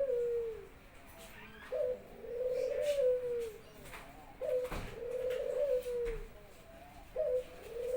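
A pet Barbary dove (burung puter) cooing over and over: each call is a short sharp note followed by a longer rolling coo that falls away at the end, repeating about every two and a half seconds. There is a single sharp click near the middle.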